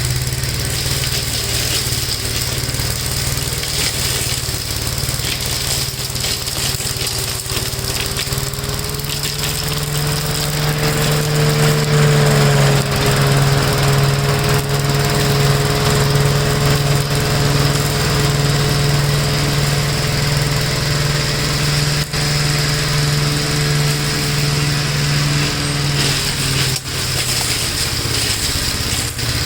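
1969 Gravely walk-behind tractor's single-cylinder engine running steadily under load. Its pitch rises a little about ten seconds in, then holds, with a short dip near the end.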